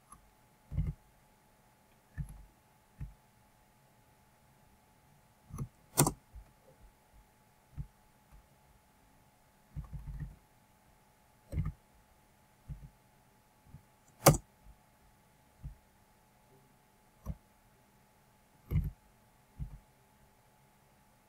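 Computer mouse clicks and dull knocks of hand handling near the microphone, irregular and spaced a second or two apart, two of them sharp clicks. A faint steady hum lies underneath.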